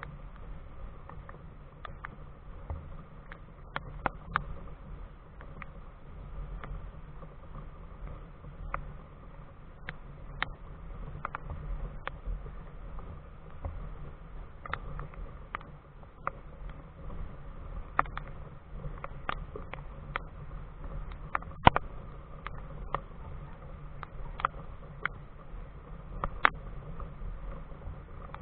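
Scattered raindrops tapping on the helmet camera's housing, sharp single ticks at irregular intervals, one louder knock about two-thirds of the way through, over a low steady rumble.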